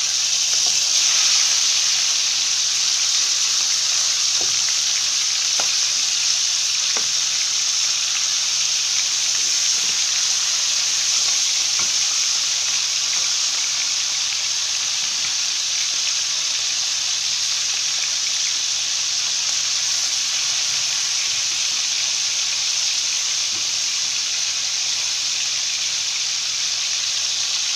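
Chicken pieces frying in hot oil in a pan, a steady sizzle while they brown, with a few light taps of the turning utensil against the pan in the first ten seconds.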